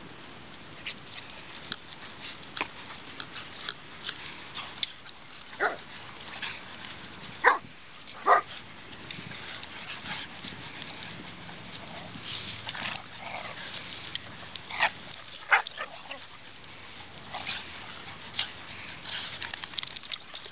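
A pack of dogs play-wrestling, with short barks now and then, the loudest ones a few seconds in and again about three-quarters of the way through, between many small scuffling clicks.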